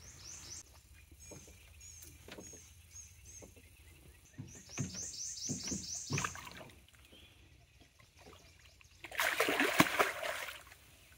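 A large blue catfish released over the side of a boat thrashes and splashes into the river about nine seconds in: one loud burst of splashing lasting about a second and a half. Before it there are only faint scattered knocks.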